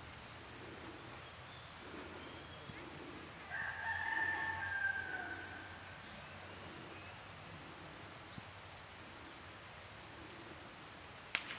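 A rooster crows once, a drawn-out call of about two seconds a few seconds in, over faint outdoor background. Right at the end comes a sharp click as the golf club strikes through the swing.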